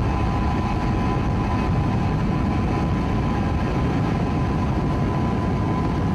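Motorboat engine running at speed, mixed with wind and water rushing over the microphone on board a moving boat: a steady, unbroken noise with no distinct crash or impact standing out.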